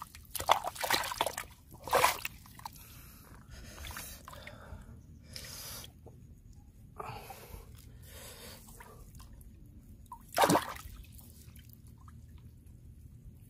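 Hands sloshing and splashing in a shallow hole of muddy water, with squelching mud and dripping. Several splashes in the first two seconds and a louder one about ten and a half seconds in.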